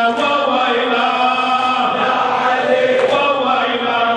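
A man chanting an Arabic raddadiya, a Shia lamentation recited to a melody, in long held notes that bend in pitch.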